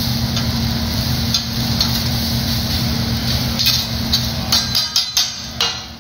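Metal spatula and fork clacking and scraping on a steel hibachi griddle as fried rice is chopped and spread, over a steady sizzle and a low hum. A quick run of sharp clacks comes in the last couple of seconds.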